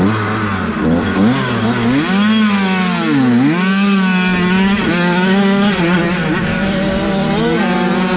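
50cc two-stroke minicross motorcycle engines revving up and down as the riders work the throttle, several bikes overlapping; one engine's pitch drops sharply and climbs again about three seconds in.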